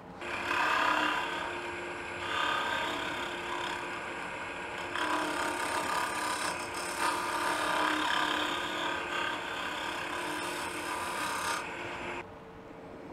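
Wood lathe cutting: a handheld turning tool scraping inside the open end of a spinning wooden blank, taking light cuts to widen the recess toward a snug fit. The cutting comes in a few passes and stops about twelve seconds in, leaving the lathe running with a faint steady hum.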